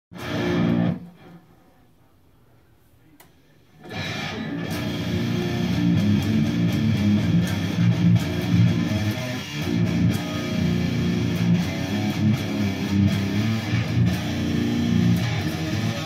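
Electric guitar played through a Peavey XXL amplifier head and speaker cabinet. A first chord rings out and dies away within a second, then after about three seconds of quiet the guitar plays continuously.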